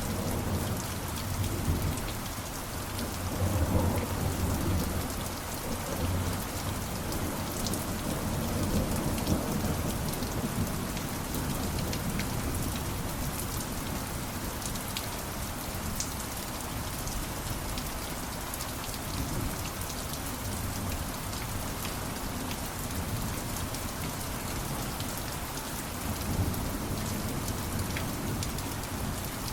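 Steady heavy rain falling, with fine drop patter, and low rolls of distant thunder swelling about two to five seconds in and again around nine seconds.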